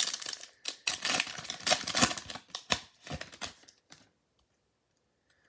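A trading-card pack being torn open: crinkling and tearing of the wrapper and cards being handled, a rapid run of small clicks and rustles that stops about four seconds in.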